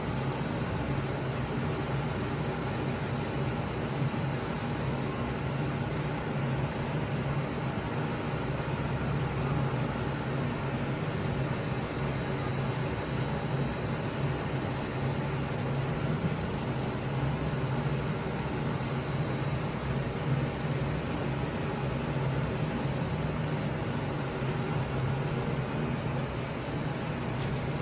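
Steady low hum with a hiss over it, the background noise of a commercial kitchen, with a couple of faint knocks in the second half.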